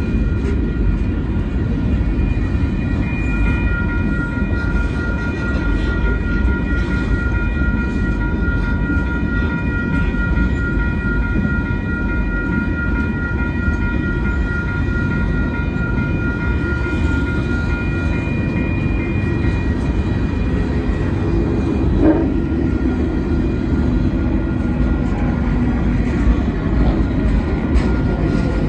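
Union Pacific freight cars rolling past: a steady, loud rumble of steel wheels on rail. Thin high-pitched tones ring over it from a few seconds in until about two-thirds of the way through, and there is a single sharp knock near the end.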